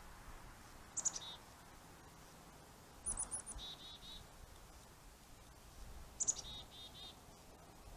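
A small bird calling three times, each call a quick run of high chirps that starts very high and drops to a lower string of repeated notes, over a faint steady hiss.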